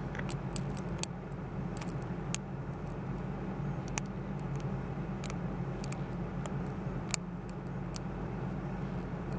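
Light, irregular metallic clicks and taps of a steel hook pick working the pin stacks of a Best interchangeable lock core under a tension wrench, over a steady low hum.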